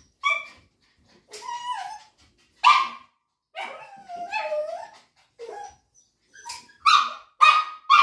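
A dog yelping and crying in a string of high, wavering calls, some short and one drawn out in the middle, coming faster near the end: protest at having its nails trimmed.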